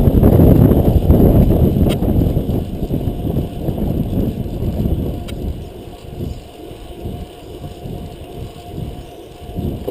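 Wind buffeting the camera microphone on a fixed-gear bicycle ridden at race speed: a loud, rough rumble that eases off about halfway through.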